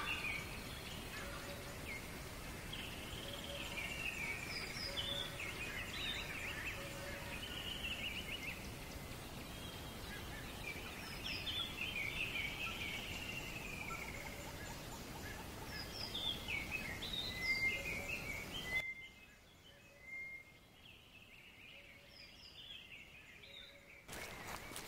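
Outdoor ambience of several birds chirping and calling over a steady background hiss. It drops noticeably quieter about nineteen seconds in, with fainter calls continuing, and rises again near the end.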